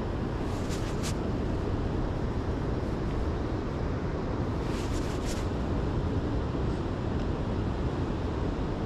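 Steady low outdoor rumble with no distinct event. Faint brief hissy sounds come about a second in and again around five seconds.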